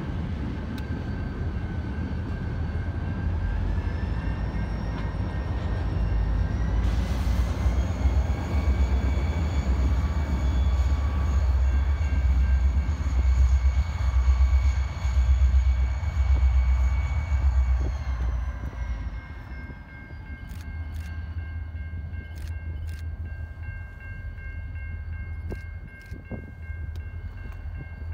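Pair of diesel helper locomotives, Illinois Central and Bessemer & Lake Erie units, passing with a deep engine rumble and a high steady whine. The sound grows to its loudest in the middle, then the whine slides down in pitch and the rumble drops away as they move off. Several sharp clicks sound near the end.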